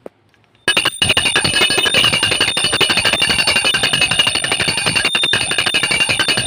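Brass puja hand bell rung fast and without pause, its clapper striking many times a second over a steady bright ringing; it starts just under a second in.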